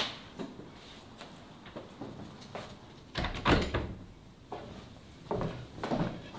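Door and footstep sounds in an old wooden house: scattered light knocks, a louder thud about three and a half seconds in, and a further run of knocks near the end.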